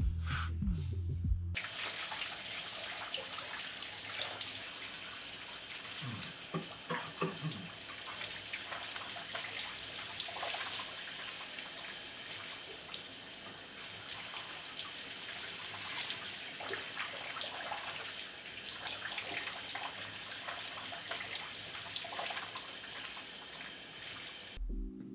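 Shower running: water spraying and pouring into a bathtub and down the drain, a steady hiss that starts about a second and a half in and stops abruptly just before the end.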